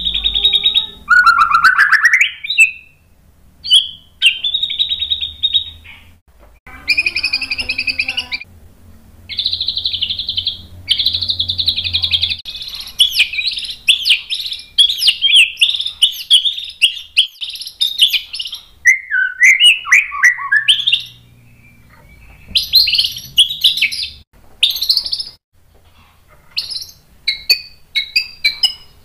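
White-rumped shama singing a run of varied phrases with short pauses between them. A rising whistle gives way to long buzzy trills and rapid rattling bursts, then a falling slurred phrase, and short sharp notes near the end.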